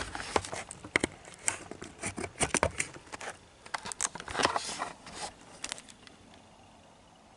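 Small irregular clicks, taps and light rattles of plastic and metal parts being handled: a DVD loader's lens pickup and its guide shaft being fitted by hand. The clicks stop about six seconds in.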